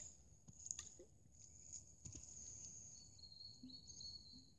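Near silence: faint outdoor background with a steady high whine, a few soft taps in the first two seconds, and a thin high whistle held for about a second, three seconds in.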